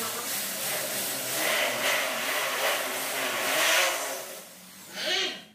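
A power tool running against the steel stud framing overhead. It is a steady, loud, hissing mechanical noise that swells and eases for about four seconds, dips, gives one short burst again about five seconds in, then stops.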